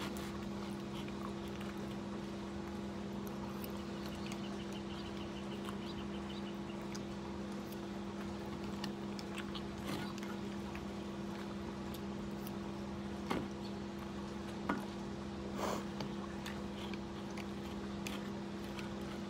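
A steady low two-tone hum runs throughout, with a few soft clicks of a plastic spoon against a plastic bowl as food is stirred and eaten.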